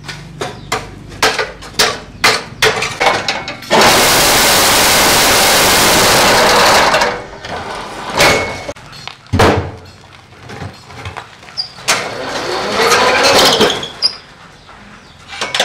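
A metal bar striking an old handcart's wheel and frame in quick succession, about three blows a second, each ringing briefly. A few seconds in, a loud steady rushing noise takes over for about three seconds, then a few scattered knocks follow.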